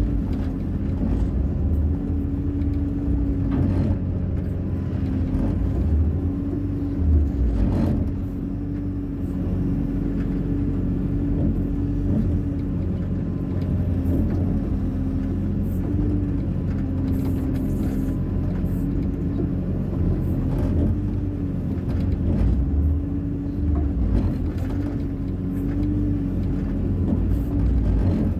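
Hyundai 140 wheeled excavator's diesel engine running steadily under working load, with a constant hum and a few short knocks.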